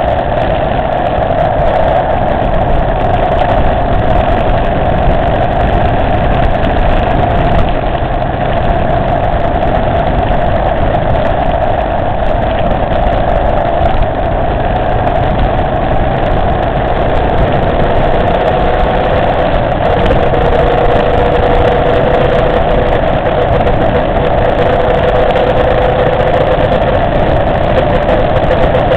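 Motorcycle engine and road noise heard from the bike itself while riding at steady road speed: a loud, unbroken drone. A thin tone joins it about twenty seconds in and rises slightly in pitch.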